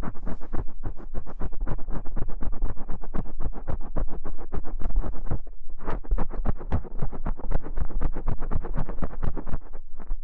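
Rapid close-miked scratching, about eight to ten quick strokes a second, with a brief pause a little past halfway.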